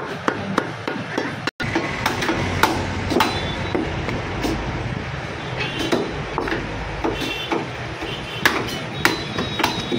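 Heavy butcher's cleaver chopping goat meat and rib bones on a wooden block in irregular sharp chops. Some chops leave a short metallic ring. The sound drops out for an instant about one and a half seconds in.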